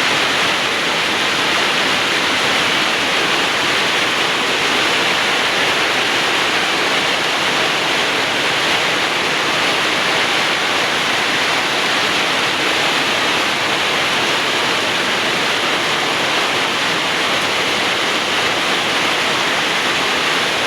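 Heavy rain falling, a loud and steady hiss of water.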